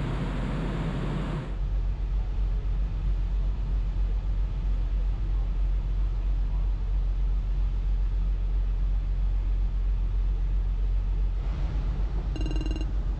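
Rushing wind and water for the first second and a half, then a steady low rumble of the ferry's engines heard from the open deck. A short high beep sounds near the end.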